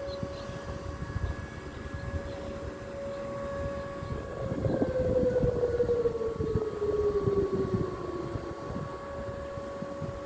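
Two Whelen WPS 2905 electronic outdoor warning sirens sounding a monthly test. One holds a steady tone. About four seconds in, a second tone breaks away and slides down in pitch over about four seconds, louder while it falls.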